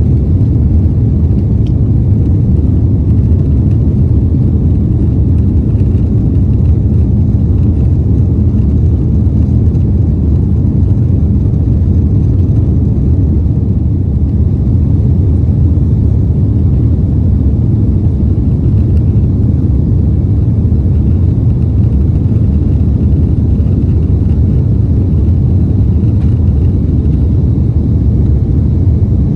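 Airbus A330 cabin noise during the climb after takeoff: the engines and rushing air give a loud, steady low rumble.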